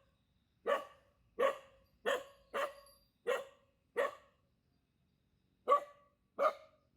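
A yappy dog barking in short single barks, eight in all, with a pause partway through: a territorial dog barking to guard its path.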